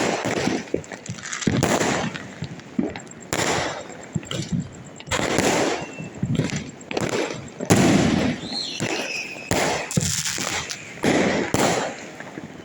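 Diwali firecrackers going off: many irregular, overlapping bangs and crackling bursts, some near and loud, others farther off.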